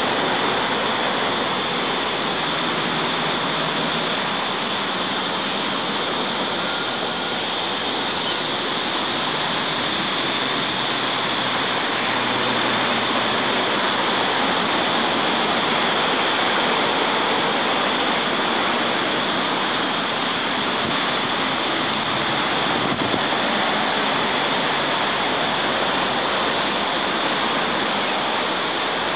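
Steady, even rushing roar of continuous road traffic from a busy road, with no single vehicle standing out.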